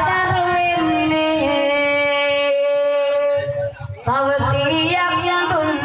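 A girl singing into a microphone over a PA, holding long ornamented notes with a short break partway through, over a low steady beat.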